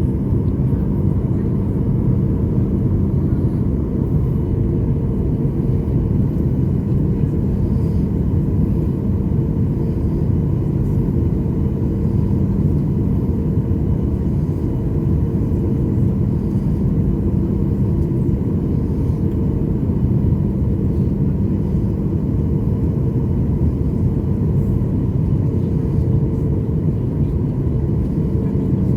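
Jet airliner cabin noise heard from inside the cabin: a steady low rumble of engines and airflow with a constant hum over it.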